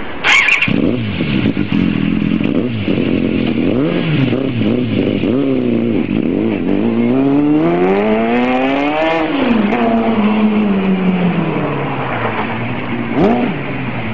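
Yamaha YZF-R6 inline-four motorcycle engine in a lawn tractor, with a sudden loud burst as it pulls away. It then revs up and down in short rises, climbs steadily to a peak about nine seconds in, and falls away as it drives off, with one brief blip near the end.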